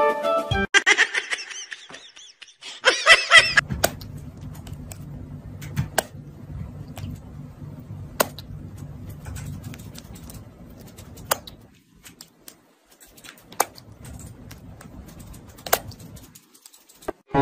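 A cat meowing twice in high, wavering calls, the first about a second long and the second shorter. A low steady hum follows, with a few sharp clicks.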